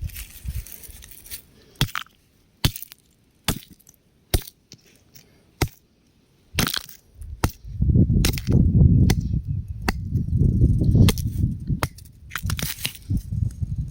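Rocks cracking and crumbling: a few separate sharp cracks, then about halfway through a longer stretch of low crunching and grinding with cracks through it, easing off into scattered cracks near the end.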